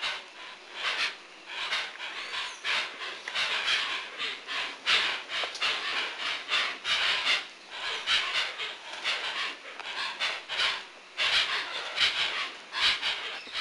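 Hoatzins calling: a run of hoarse, breathy hisses and wheezes that come in quick, irregular bursts, one after another.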